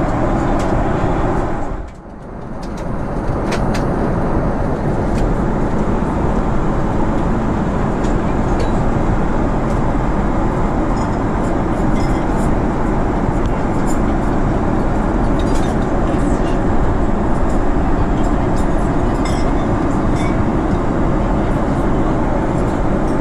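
Steady cabin noise of a Boeing 777-300 airliner in cruise, an even rush of engine and airflow noise. It dips briefly about two seconds in, with a few faint clicks over it.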